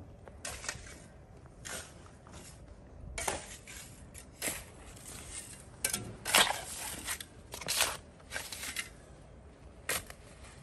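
A steel shovel scraping and digging into rocky soil: a string of irregular scrapes with metallic clinks as the blade strikes stones.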